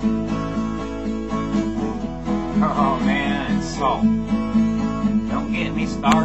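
Twelve-string acoustic guitar strummed in steady chords.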